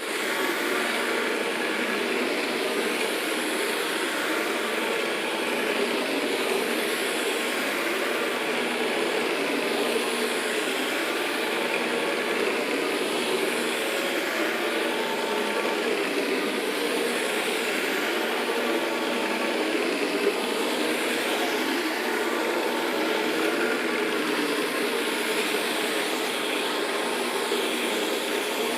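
Carpet-cleaning machine running steadily with an even motor noise, starting abruptly at the beginning.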